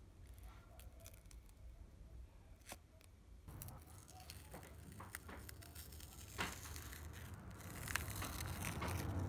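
Scattered light clicks and rustling, as of small objects being handled, growing busier about halfway in, with a louder stretch of rustling near the end.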